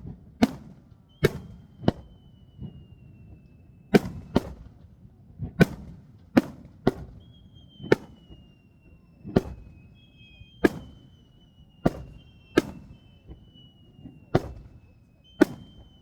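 Aerial fireworks bursting with sharp bangs, roughly one a second at an uneven pace, each followed by a short rumble. Several long high whistles drift slowly down in pitch between the bangs.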